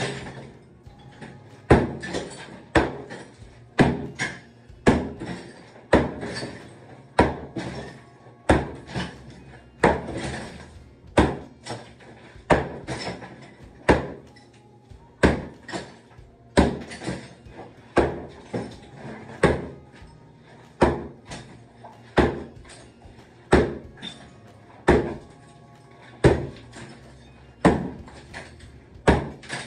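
Sledgehammer pounding an old tiled shower wall in steady blows about every 0.7 seconds, breaking ceramic tile and its thick mortar bed off the wall, with chunks clattering down after each hit.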